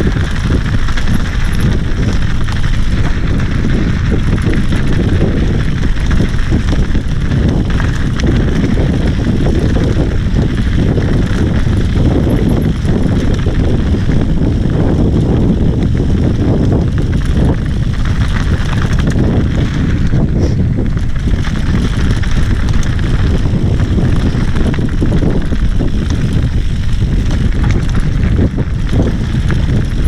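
Santa Cruz Bronson mountain bike descending a rocky singletrack at speed: steady wind rush on the helmet-mounted microphone, tyres crunching over gravel and rocks, and constant knocks and rattles from the bike over bumps.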